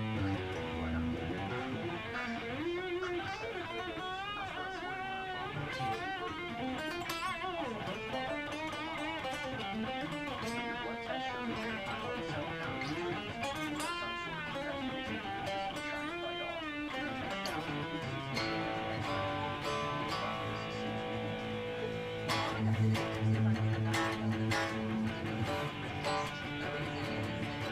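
Electric guitar playing, with notes that bend and waver for much of the passage, giving way about two-thirds through to steadier held notes and chords.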